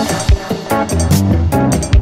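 Background music with a steady beat, bass and guitar.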